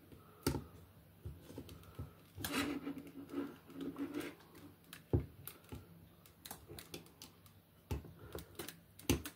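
Small plastic wire connectors being pushed into sockets on a 3D printer print head, with irregular light clicks and taps and some handling rustle.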